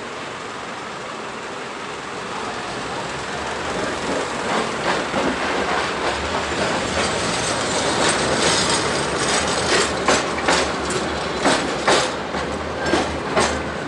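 Tatra T3 tram passing close by, its motors humming low as it draws near. Through the second half its wheels clack sharply and unevenly over rail joints, above the hiss of street traffic.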